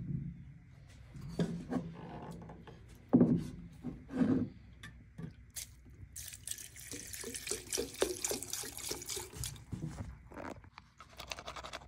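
Lacquer thinner poured into a glass jar over metal furniture casters, the liquid splashing in the jar for several seconds in the second half, after two louder clunks about three and four seconds in.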